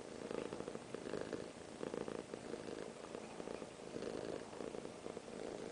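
Domestic cat purring steadily while held close, a contented purr that swells and eases in waves under a second apart with each breath.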